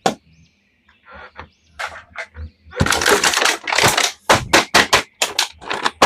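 Crackling, crinkling handling noises, sparse at first, then about halfway through a run of quick scratchy strokes at about three a second.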